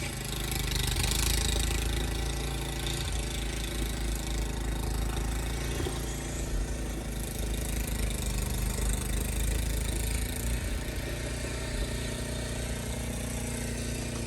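A car engine idling steadily with a low hum.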